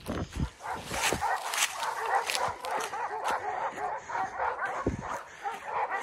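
Dogs barking rapidly and without pause in the distance, baying at a wild animal they have cornered. Footsteps thump briefly at the start.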